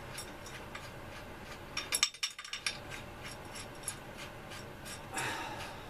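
Small metal parts and a screw being handled during assembly: scattered light clicks, a quick cluster of clinks about two seconds in, and a brief scrape near the end.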